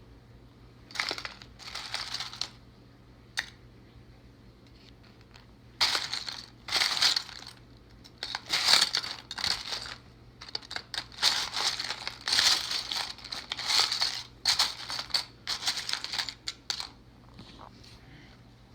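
Small plastic LEGO minifigure parts being handled and rummaged through: irregular bouts of clicking, rattling and rustling, a brief bout near the start, then nearly continuous from about six seconds in.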